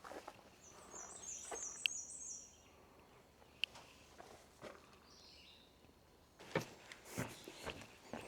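A hiker's footsteps on a trail with birds singing: a quick series of high, repeated notes about a second in and a lower, stepping-down phrase around five seconds in. The footfalls grow louder near the end.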